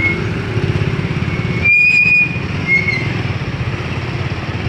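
Motorcycle engine running at riding speed, with a rapid, even exhaust pulse. A few short high chirps sound over it; the longest and loudest comes about two seconds in.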